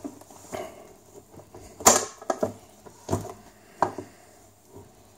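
Battery case of an AN/PRC-10 manpack radio being worked loose and pulled off the radio set: a string of sharp knocks and clicks, the loudest about two seconds in.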